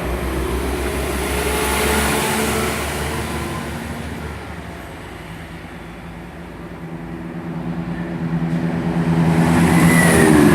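Class 172 Turbostar diesel multiple unit pulling out and fading away. Then a Class 168 diesel multiple unit running through the station grows louder, its engine tones falling in pitch near the end as it passes.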